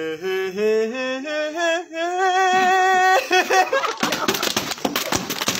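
A single voice singing a wavering, stepping melody for about three seconds. From about four seconds in it gives way to dense, crackly noise and clatter.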